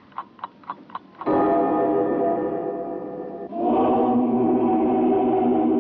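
A quick regular striking, about four strokes a second, gives way to a loud held musical chord. About halfway through, the chord changes abruptly to another held chord, with a ringing, bell-like quality.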